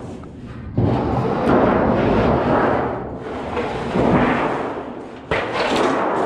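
A large sheet of galvanized steel being cut, flexing and rumbling like a thunder sheet in several long surges, each starting suddenly.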